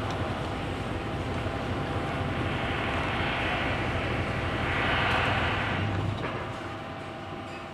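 Isuzu Giga dump truck's diesel engine running steadily, then shutting off about six seconds in as the key is turned off: the newly fitted engine stop motor and cable now stop the engine, which earlier kept running with the key off.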